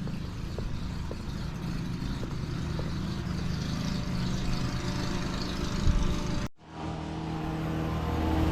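Engine running steadily at constant speed. It cuts out briefly about six and a half seconds in, then comes back louder and grows toward the end.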